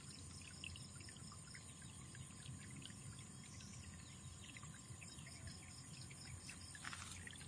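Faint outdoor ambience: a steady high-pitched chirring in an even pulsing pattern, scattered faint ticks and a low hum underneath.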